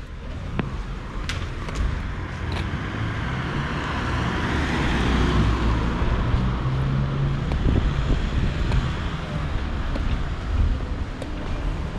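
Road traffic on a city street: a vehicle passing close, its engine rumble and tyre noise building over the first few seconds and peaking about five seconds in.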